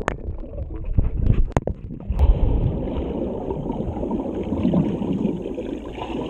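Swimming-pool water heard underwater through an action camera's waterproof housing: a muffled churning and bubbling from a swimmer's kicking legs. There are a few sharp clicks in the first couple of seconds, and from about two seconds in the churning runs dense and dull, with no high end.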